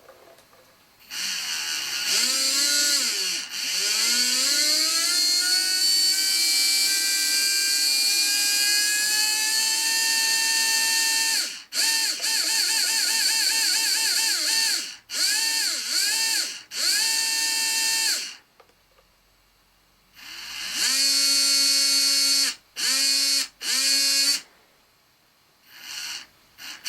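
Brushless motor of a Tamiya radio-control model whining under throttle. Its pitch climbs over the first ten seconds and holds, then it comes in short bursts with a pause of about two seconds. A hissing rasp rides over the whine, which the owner suspects is an abnormal noise, possibly an initial defect.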